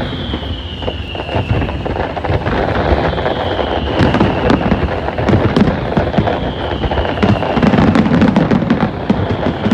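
Aerial fireworks display: shells bursting with repeated bangs and crackles, growing denser about halfway through. A high whistle falling in pitch repeats every couple of seconds.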